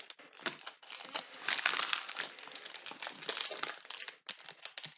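A Panini Playoff football card pack's wrapper being torn open and crinkled by hand. It makes a dense crackling that is loudest from about a second and a half in until nearly four seconds.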